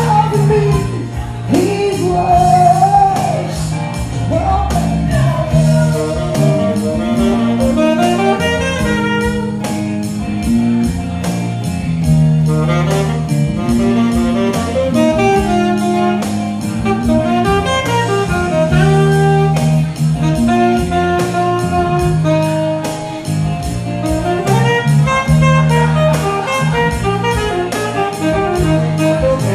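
Live band music: electric bass and acoustic guitar over a steady hand-drum beat, with a melody line on top.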